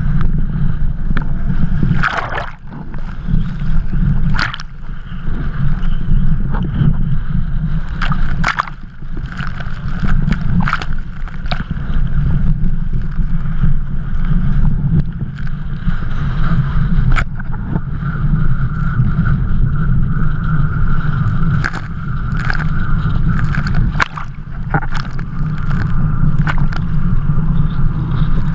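Strong wind buffeting the action camera's microphone in a loud, steady low rumble. Over it, water sloshes and splashes around a kiteboarder being pulled through choppy water by his kite, with many sharp splashes striking the camera.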